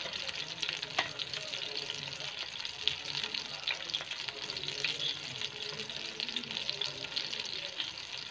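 Whole stuffed chicken shallow-frying in oil in a nonstick pan: a steady sizzle with fine crackling and a few sharper spits of oil, one about a second in.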